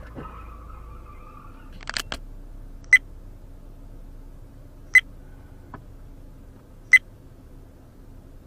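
Three short, sharp clicks evenly spaced two seconds apart, over a faint steady hum in a stopped car's cabin; a pair of quieter knocks comes just before the first click.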